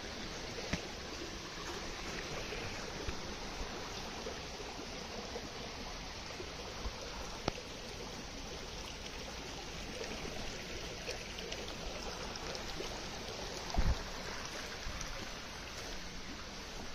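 A fairly big stream flowing, a steady wash of water, with a few light clicks and one dull thump near the end.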